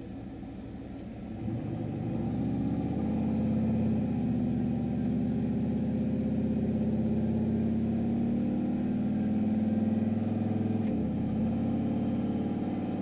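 Turbocharged Chevrolet Silverado pickup's engine and dual-exit side exhaust, heard from inside the cab: idling, then pulling away about a second and a half in and running steadily, with a brief dip near the end as it shifts gear.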